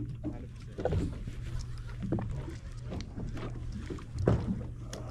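Small waves slapping against a drifting fishing boat's hull at irregular intervals, over a steady low hum.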